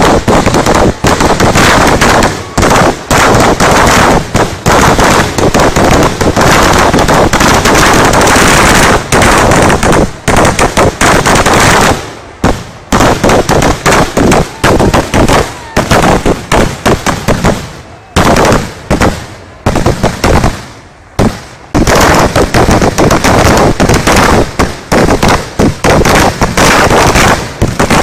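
Kerala temple fireworks (vedikettu) going off in a dense, continuous barrage of very loud firecracker bangs, so rapid that they run together like machine-gun fire, with a few short lulls about halfway and two-thirds through.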